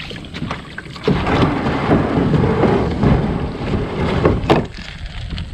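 Plastic kayak hull dragged over a gravel and stone shore: a loud grinding scrape with pebbles clicking and clattering. It starts suddenly about a second in and eases off near the end.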